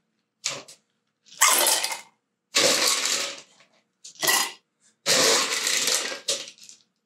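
Ice cubes clattering as handfuls are scooped from a metal bowl and dropped into copper mugs, in about five separate rattling bursts, the last one the longest.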